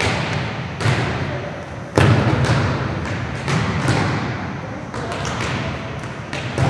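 Volleyballs being struck by players in a passing drill, with sharp thuds about six times, each echoing around a gymnasium.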